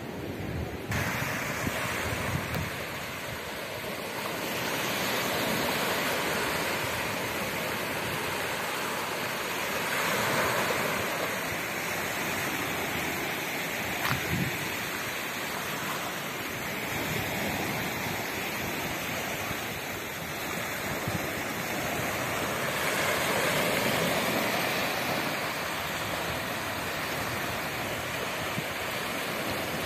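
Small sea waves washing against a rock breakwater and shore, the rush swelling and easing every few seconds, with some wind on the microphone.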